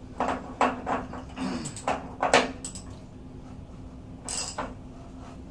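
Several sharp clinks and knocks of metal tools being handled, then a brief hiss-like scrape near the end, over a steady low hum.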